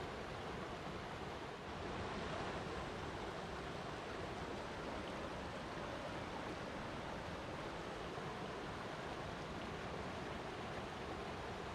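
Water flowing steadily in an even, unbroken rush, with no distinct splashes or drips.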